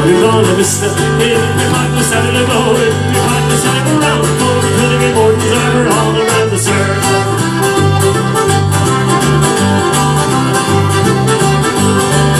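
Country-style background music with guitar over a steady bass line that alternates between notes.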